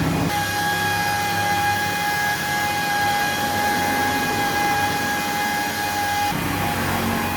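A motor running with a steady whine that shifts to a lower, rougher sound about six seconds in.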